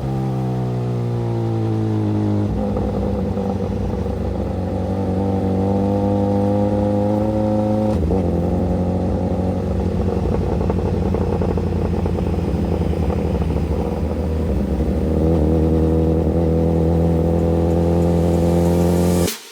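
Suzuki GSX-S1000's inline-four engine running under way at moderate revs: its pitch falls over the first couple of seconds, climbs gently, drops abruptly about eight seconds in, then holds fairly steady. The sound cuts off just before the end.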